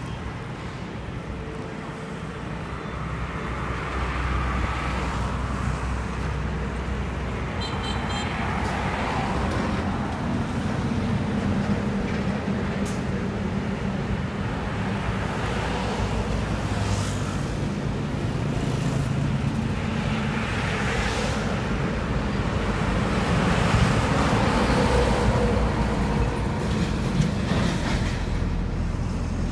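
Highway traffic passing close by: container trucks and cars, with a steady low rumble and noise that swells and fades as each vehicle goes past.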